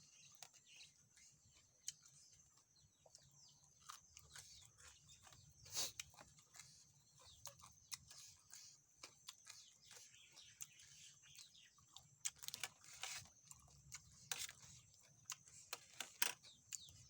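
Faint eating sounds: chewing and crunching, with many short clicks and crackles and a faint steady high hiss behind them.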